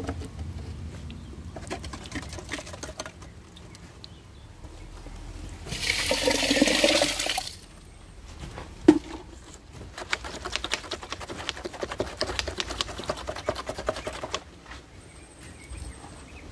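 Liquid splashing or pouring for about a second and a half in the middle, the loudest sound. A single sharp knock follows, then several seconds of rapid light clicking and rattling.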